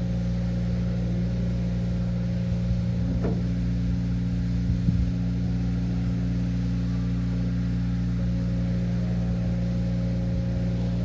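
Steady low mechanical hum of running machinery, with a sharp knock about three seconds in and a small click near five seconds.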